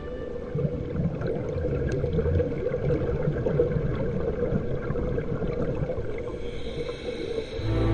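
Underwater sound of a scuba diver's regulator, with exhaled bubbles gurgling up past the camera over a muffled, steady rumble.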